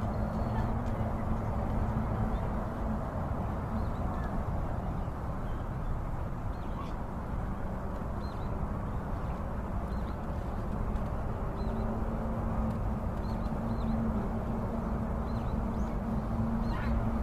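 Short, faint, high bird calls scattered throughout over a steady low outdoor rumble and hum.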